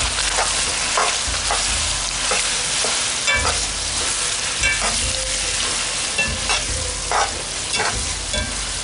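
Boiled mutton pieces sizzling in hot oil in a pan while a plastic spatula stirs in freshly added chilli, turmeric and ginger-garlic paste. The spatula scrapes and knocks against the pan roughly once a second over the steady sizzle.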